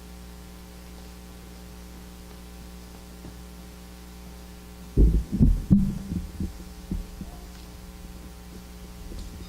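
Steady electrical hum from the sound system. About halfway through, a cluster of dull, loud low thumps and bumps breaks in for a couple of seconds, then fainter ones follow.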